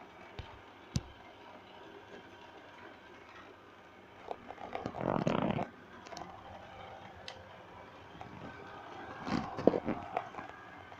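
iLife V7s robot vacuum running with a steady faint motor hum, broken by a louder scraping rush about five seconds in and a few sharp knocks near the end.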